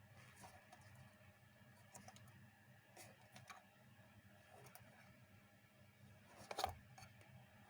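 Near silence: faint room tone with a few scattered light clicks and one sharper knock about six and a half seconds in.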